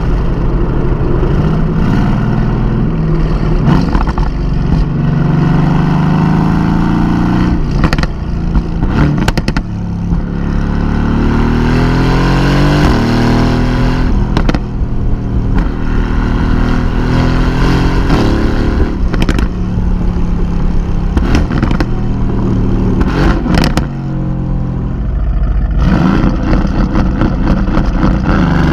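Tuned Mercedes-AMG GT's twin-turbo V8 with its exhaust, revving and accelerating hard again and again. The pitch climbs and drops back at each gear change, with sharp cracks scattered through.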